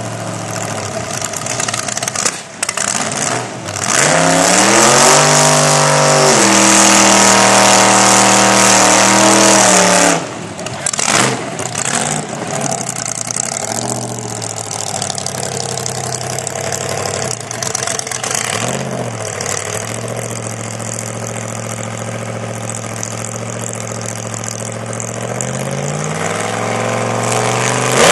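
8-71-supercharged small-block Chevrolet V8 in a Ford Ranger drag truck: it revs up about four seconds in and holds high revs for about six seconds during a burnout, then drops back with a few short blips. It settles to a steady idle while staging and starts to rise again near the end.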